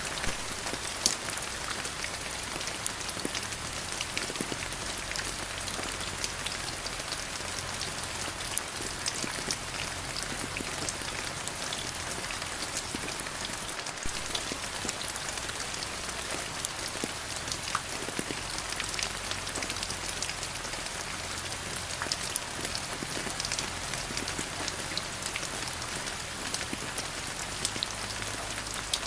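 Steady rain falling, a continuous hiss with many separate drops pattering and ticking on surfaces.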